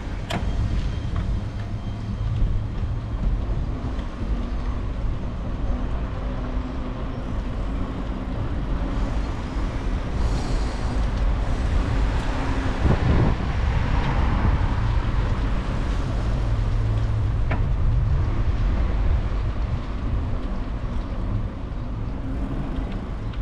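Low rumble of wind and road noise from a camera riding on a moving bicycle, with a car passing about halfway through.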